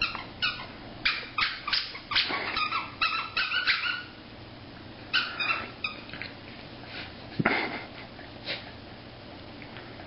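Corgi worrying a plush giraffe toy, with a quick run of short high-pitched squeaks and whimpers for about four seconds, then a handful more, scattered further apart.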